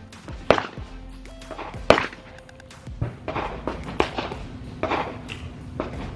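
Several gunshots, two sharp loud ones about half a second and two seconds in and softer cracks after, over background music.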